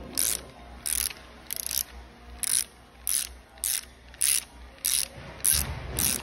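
Socket wrench ratchet clicking in short bursts, about one every 0.6 s, as the portable roller swaging tool is turned to finish rolling a bearing into its housing.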